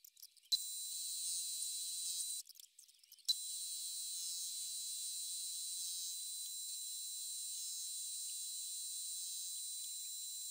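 Metal lathe running with a steady high-pitched whine. It is stopped at the start and again for about a second near the three-second mark. Each time it starts again with a sharp click, then runs on steadily.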